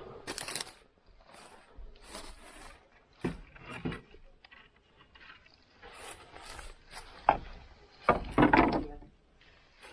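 Wooden boards or timber being handled and moved, with scattered knocks and scrapes and a louder dragging scrape about eight seconds in.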